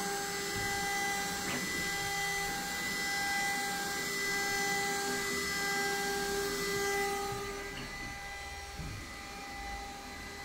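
CNC router spindle motor running unloaded, cutting air, with a steady high whine of several pitches. The whine and hiss ease off about seven to eight seconds in.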